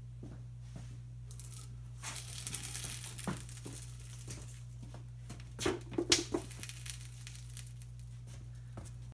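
Golf balls rolling and crackling under a 750 lb steel gun safe as it is pushed across a concrete floor: a gritty rush starting about two seconds in, then a quick cluster of sharp knocks.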